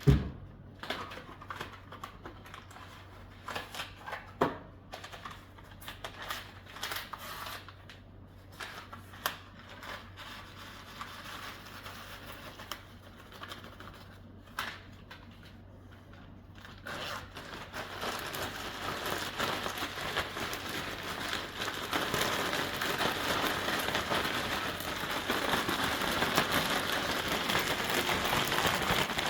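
A knock, then the crinkling and clicking of a plastic zip-top bag being handled with small potatoes and olive oil in it. From about 18 seconds in, a steady, growing rustle of the potatoes being shaken in the bag to coat them.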